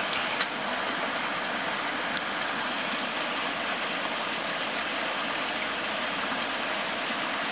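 Steady rushing of a nearby stream flowing over rocks, with a single sharp click about half a second in.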